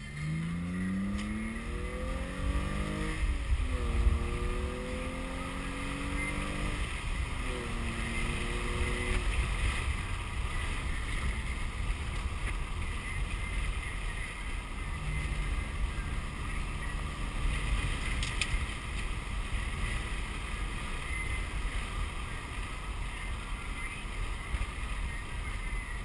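BMW car accelerating, heard from inside the cabin: the engine note rises, drops at an upshift about three seconds in, rises again and drops at a second upshift about seven seconds in. It then settles into steady cruising with a low rumble of road and wind noise.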